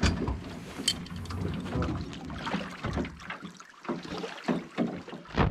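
Water splashing and sloshing as a drowned beaver held in a foothold trap is lifted out of shallow river water, with small knocks and rattles of the trap's metal and a louder knock at the very end.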